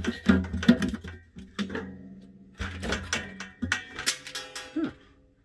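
Hard plastic vacuum-cleaner accessory parts being handled: a run of irregular clicks, knocks and light rattles, some with a short ringing tone.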